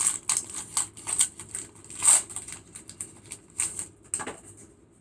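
Crinkling and clicking of a foil Pokémon booster pack and its trading cards being handled, a quick run of short crackles loudest about two seconds in that dies away near the end.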